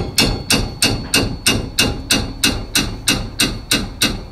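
Hammer blows on the end of a 17 mm wrench, evenly spaced at about three a second, each a sharp metallic knock with a short ring. This is how a tight lower brake caliper bolt is being broken loose.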